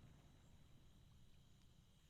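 Near silence: a faint low rumble dying away after a firework shell's burst.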